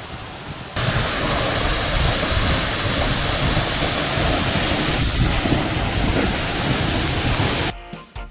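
Close-up roar of a tall man-made waterfall: a steady, loud rush of falling water and spray. It gets louder about a second in and cuts off suddenly near the end.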